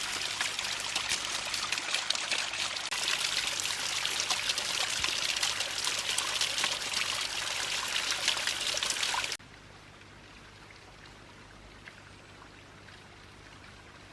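Steady rushing water filling the sound, cut off abruptly about nine seconds in, followed by a much quieter faint outdoor hiss.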